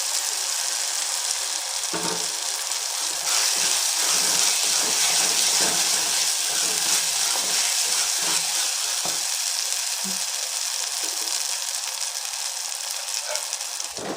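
Ground masala paste sizzling as it is sautéed in hot oil, a steady hiss with a few soft stirring sounds, fried until the oil separates from the paste.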